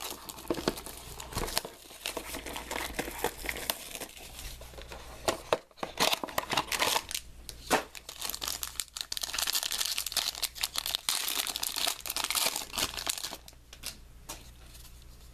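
Foil wrapper of a trading-card pack crinkling and tearing as it is opened by hand, with irregular crackles. The crinkling is densest a little past halfway and quieter near the end.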